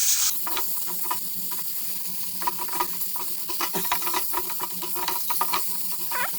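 A pan of tomatoes and carrots sizzling while a spoon stirs through it, with frequent scrapes and taps of the spoon against the pan.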